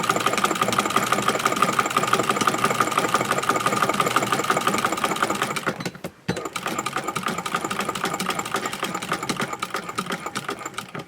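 Singer 201K cast-iron sewing machine running fast with a buttonholer attachment, stitching a buttonhole with rapid, even needle strokes. It stops briefly about six seconds in, then runs on a little quieter until it stops at the end.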